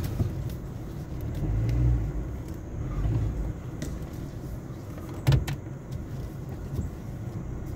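Car cabin sound as the car creeps forward at low speed: a steady low engine and road rumble. A sharp knock about five seconds in is the loudest sound.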